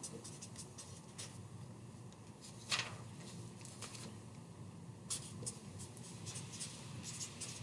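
Pen scratching on paper with scattered light ticks and paper handling, and one sharper tap about three seconds in.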